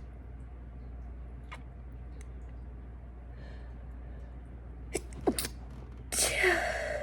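A woman stifling sneezes. After a mostly quiet stretch, a couple of short, clipped, held-back sneezes come about five seconds in, then a longer breathy burst near the end.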